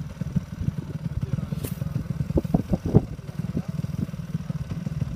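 Dirt bike engine idling with a steady low pulsing, with a few sharper knocks about halfway through.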